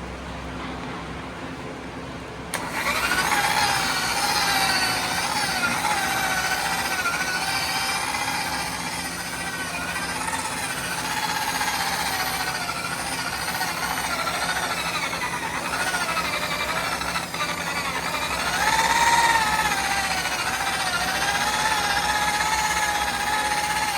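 Harbor Freight electric buffer starting up about two and a half seconds in, then running with a steady motor whine whose pitch wavers as the foam pad buffs compound on a plastic headlight lens. The owner thinks the buffer is on its last leg.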